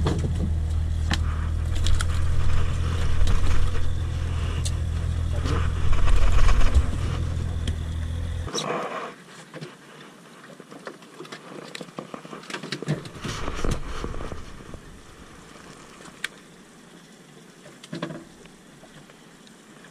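A fish being unhooked on a boat deck: scraping and clicking against a steady low rumble. About eight and a half seconds in, the rumble cuts off abruptly, and only faint clicks and knocks follow.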